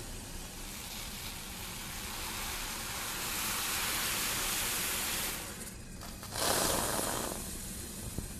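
A rushing hiss that swells over a few seconds and dies away, then a shorter, louder burst of hiss about six seconds in.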